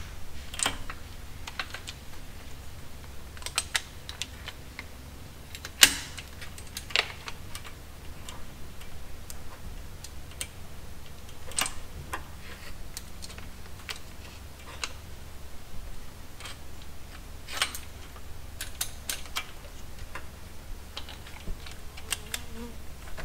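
Irregular light metallic clicks and clinks of a steel timing chain being handled and fitted over the sprockets and guides of a Ford 4.6 2-valve V8, the loudest a sharp clack about six seconds in. A faint steady low hum runs underneath.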